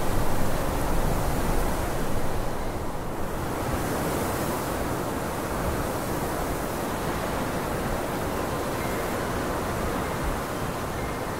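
Steady rushing hiss with no distinct events, a little louder in the first two seconds.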